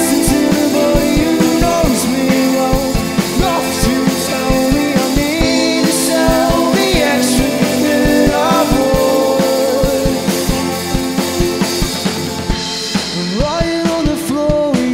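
A rock band playing live: two electric guitars, bass guitar and drum kit with a steady beat, and vocals sung over the top.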